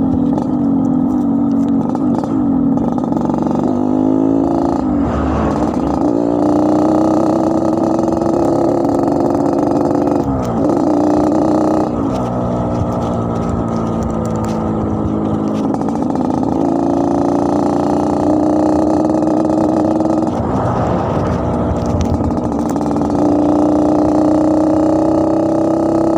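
Yamaha RX-King two-stroke single-cylinder motorcycle engine running with its snoring 'ngorok' exhaust note. Its pitch climbs slowly for several seconds and then drops sharply, four times over.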